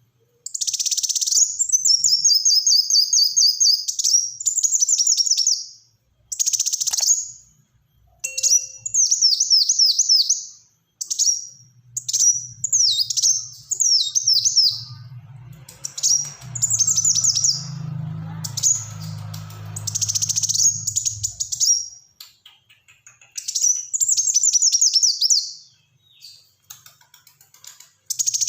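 Kolibri wulung sunbird singing in rapid, tightly packed bursts of high, quickly falling notes, phrase after phrase with short pauses. A low hum runs underneath for about ten seconds in the middle.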